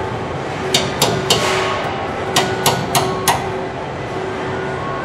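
Ball-peen hammer striking metal on a car-body part: seven sharp blows in two quick runs, three and then four. A steady factory hum with a constant tone runs under them.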